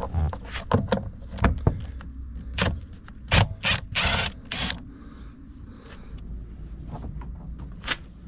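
Irregular clicks and knocks, with a cluster of short rustling or scraping bursts about three to five seconds in.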